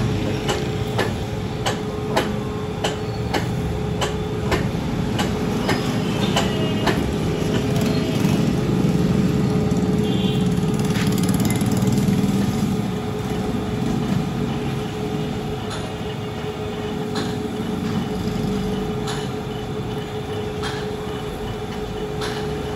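Lathe spinning a crankshaft while a toothed belt is held pressed around one of its journals: a steady motor hum under a rough rubbing noise, with sharp clicks about twice a second at first that become sparser later.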